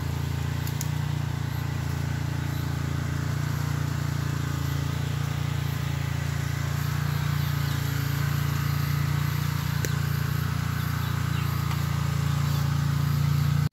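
A steady low hum with a rushing noise over it, and faint high insect chirps repeating roughly once or twice a second in the second half.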